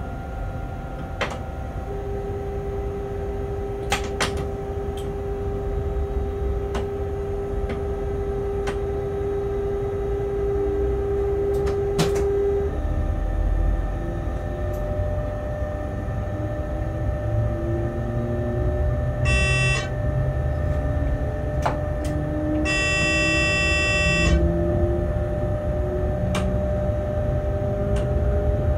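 Locomotive running heard from inside its cab: a steady low rumble with a steady hum, and from about ten seconds in faint whines that rise in pitch as it gathers speed. Scattered sharp ticks, and two short bursts of a high electronic warning tone, a brief one about two-thirds of the way in and a longer one a few seconds later.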